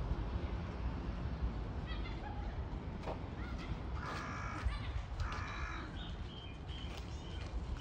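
A crow cawing twice, about a second apart, a little past halfway, over a low steady rumble.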